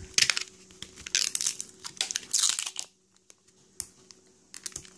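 Plastic wrapping of an L.O.L. Surprise ball being picked at and torn, crinkling in several short bursts with a pause of about a second in the middle.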